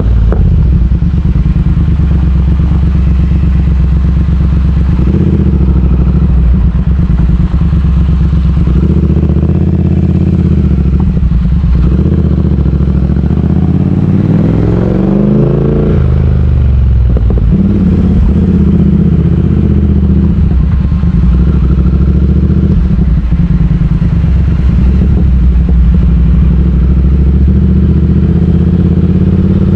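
Triumph Speed Twin 1200's parallel-twin engine running steadily under way. About halfway through its pitch drops as it slows, then rises again as it accelerates away.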